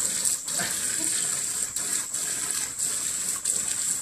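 Garden hose spray nozzle jetting water into a shallow plastic paddling pool: a steady gushing hiss with splashing, dipping briefly a few times.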